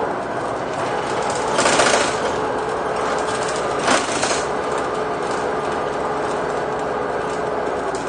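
Renault Agora L articulated bus engine running steadily with a rattly, even drone, broken by two short hisses of air, about one and a half seconds in and again about four seconds in.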